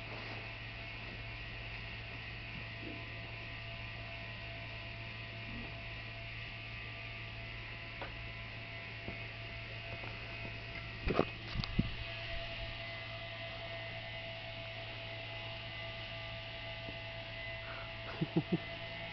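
Steady low electrical hum, with a few short clicks or knocks about eleven seconds in and again near the end.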